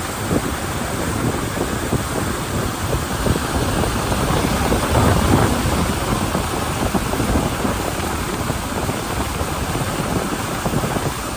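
Steady rushing noise of wind and sea water around a small boat under way, with wind buffeting the microphone.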